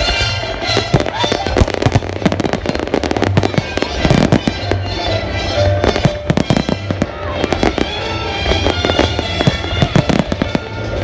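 Display fireworks going off in quick succession, many sharp bangs and crackles, densest about four and six to seven seconds in, with music playing under them.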